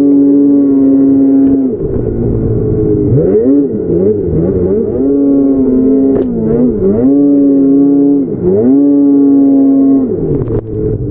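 Snowmobile engine running at high revs through deep powder, the throttle let off and blipped several times so the pitch drops and climbs again, with a stretch of quick up-and-down revving a few seconds in. Brief sharp clicks come about six and ten and a half seconds in.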